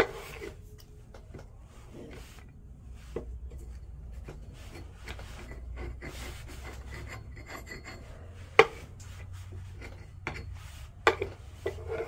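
Putty knife scraping softened, stripper-bubbled paint off a painted wooden nightstand top in short repeated strokes, with a sharp tap about two-thirds of the way through.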